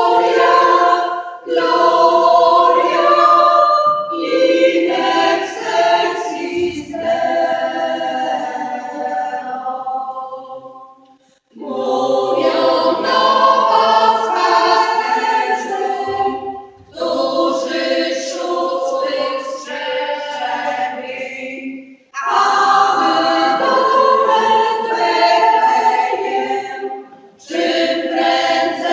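Women's choir singing a Polish Christmas carol (kolęda), line by line, with short breaks between phrases about every five seconds.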